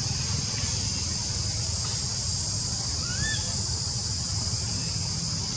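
Tropical forest ambience: a steady high-pitched insect drone over a low steady rumble, with one short rising chirp about three seconds in.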